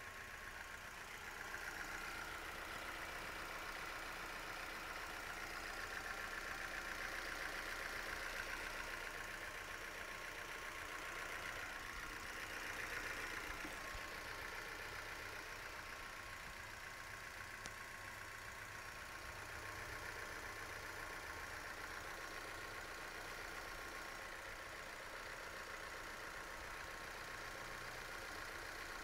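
Opel Vectra C 1.8 petrol four-cylinder engine running steadily, apparently at idle, with a strange noise whose cause the owner does not know. The noise is mostly in the upper mid range, has a fast fluttering texture, and swells slightly a few times.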